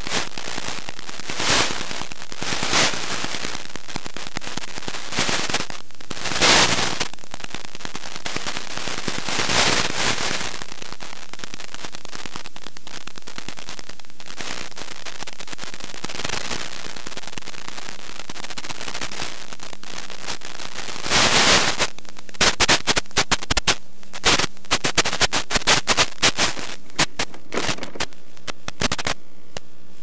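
Steady hiss and static from the RC crawler's onboard microphone, carried over its 5.8 GHz analog FPV transmitter, typical of a weak analog radio link. A few loud crackling bursts break through in the first ten seconds, then a dense run of rapid crackles and pops comes about two-thirds of the way in.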